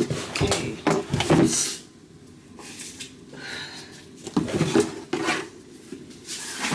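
A cardboard gift box being handled: short knocks and scrapes of the box and its lid, with paper rustling, in two clusters separated by a quieter stretch.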